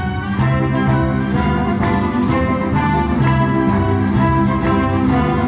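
Live symphony orchestra playing, with the string section to the fore over changing low notes.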